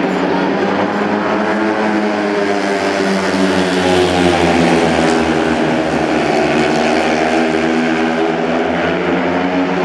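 Four speedway motorcycles racing, their 500cc single-cylinder methanol engines at high revs, the engine pitch rising and falling as they go through the bends, loudest about four seconds in.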